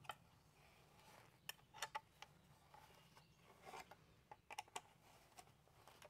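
Near silence with faint, scattered clicks and light rubbing of small hardware being handled: washers and nuts being fitted by hand onto the screws that hold the mounting plate to the dash tray.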